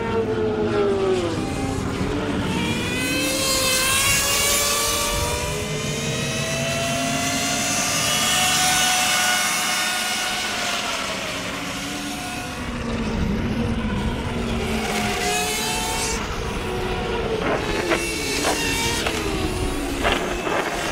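Electric minibikes' motors whining, several at once, the pitch gliding up and down as they accelerate and slow through the corners. A few sharp clicks come near the end.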